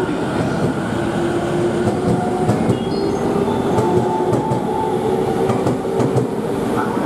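JR East E231 series 500-番台 electric train with equipment-updated Mitsubishi IGBT-VVVF inverters, running along the platform. Its motor whine climbs slowly in pitch as it picks up speed, over steady wheel-on-rail rumble.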